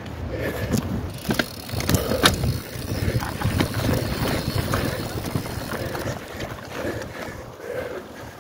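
Mountain bike ridden over a rough trail: an irregular rumble of tyres and rattling with scattered clicks and knocks, and wind buffeting the microphone.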